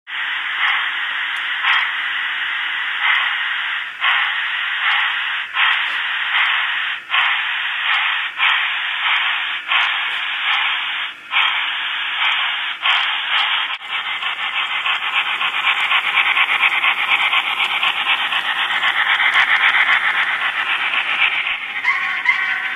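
Sound decoder in an N-scale Walthers Y3 2-8-8-2 model steam locomotive playing steam exhaust through its tiny speaker: a steady raspy hiss with a beat about once a second at first, then a denser, more even hiss. A brief pitched tone comes in near the end.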